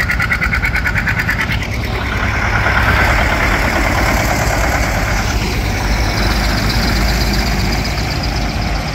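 Vintage farm tractors driving past. A John Deere two-cylinder tractor's engine runs with a fast, even putting beat for the first couple of seconds, then gives way to a smoother, slightly louder engine drone as the next tractors pass.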